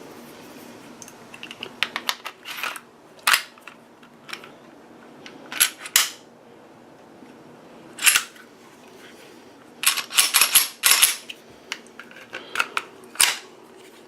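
Sharp metallic clicks and short scrapes from a Smith & Wesson Shield .40 pistol being reassembled and worked by hand, coming in scattered groups, with a quick run of clicks about ten seconds in.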